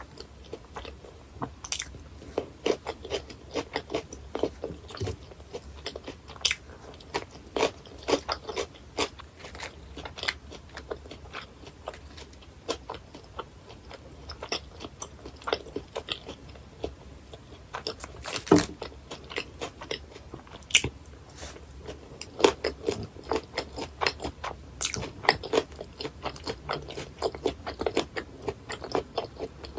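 Close-miked chewing of raw gizzard shad sashimi, sliced bone-in, with many short crisp crunches as the fine bones break, and one sharper crunch about two-thirds through.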